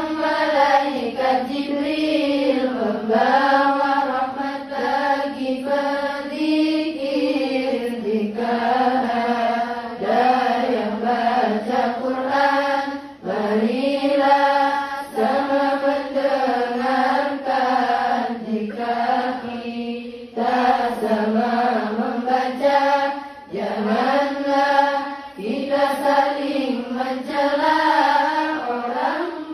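A large group of girls singing sholawat, Islamic devotional chant praising the Prophet, in unison, in long melodic phrases with short breaks for breath.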